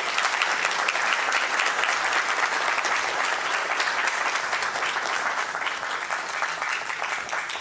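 Audience applauding, a dense steady clapping that thins out near the end into scattered separate claps.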